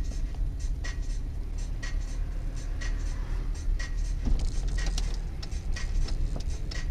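Car cabin sound from a moving car: steady low engine and road rumble, with a light sharp tick repeating about once a second.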